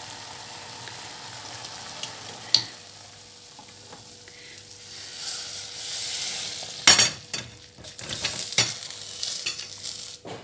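A stainless steel pot of vegetable and meatball broth simmering with a steady hiss, then tipped so the broth and vegetables pour and splash into a ceramic bowl. A loud knock comes about seven seconds in, followed by a run of clinks and knocks of metal against the bowl.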